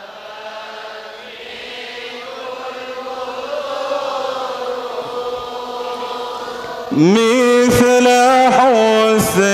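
Salawat on the Prophet chanted by a congregation in unison, a slow drawn-out melody growing gradually louder. About seven seconds in, a man's voice on a close microphone comes in much louder, singing long held notes of the same chant.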